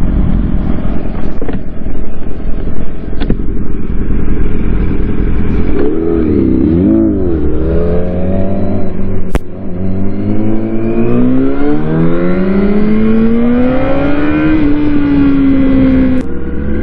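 Sport motorcycle engine idling at a stop, blipped, then pulling away and accelerating hard through several gears. The pitch climbs and drops back at each upshift, about three times, then holds steady at cruising speed.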